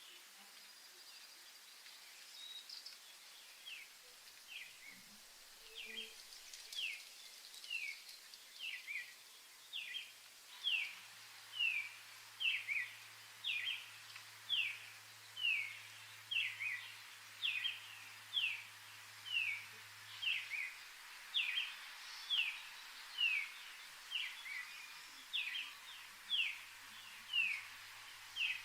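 A bird calling over and over, a short falling note a little more than once a second, growing louder after the first few seconds, over a soft background hiss.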